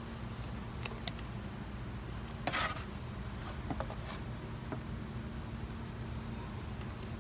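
Steady low hum with a few light clicks. About two and a half seconds in there is a brief rustling scrape.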